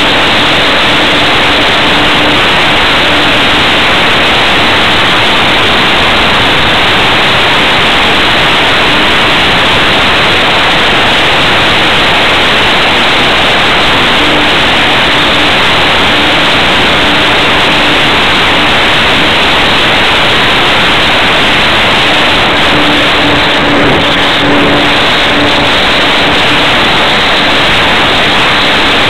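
Steady loud rush of wind over a camera mounted under the wing of a propeller plane in flight, with a faint steady engine hum coming and going underneath.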